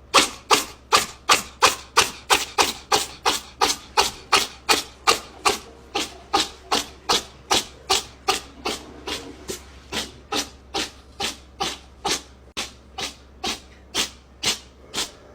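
Rhythmic scraping strokes, about two and a half a second, evenly paced and slowly getting fainter.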